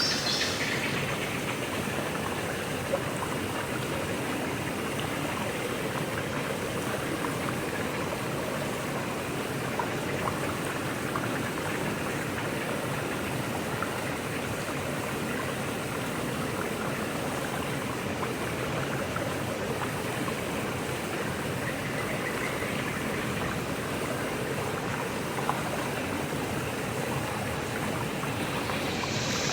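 Mountain stream rushing steadily over rocks, an even wash of running water with no music or tone over it.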